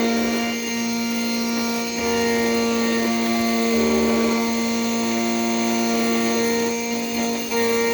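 Key-cutting machine's spindle motor running with a steady whine as its 2.0 mm end mill cuts a single-sided Toyota TOY40 key blade. The higher tones shift every second or so as the cutter moves along the blade.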